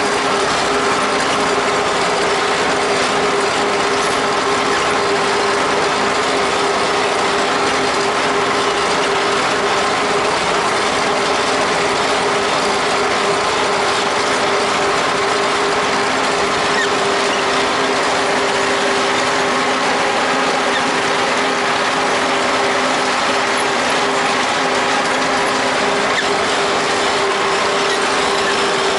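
Haymaking machinery running behind a tractor: a loud, unbroken mechanical clatter of turning, meshing parts with a steady hum under it.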